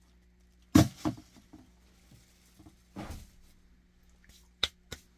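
Handling noises on a hard surface: two sharp knocks about a second in, a brief scuff around the middle, and two quick sharp clicks near the end.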